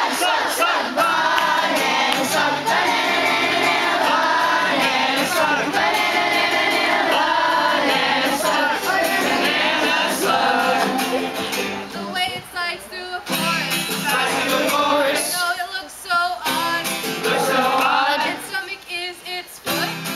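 A group of voices singing a song together to acoustic guitar accompaniment. About twelve seconds in, the singing thins out and is broken by short pauses.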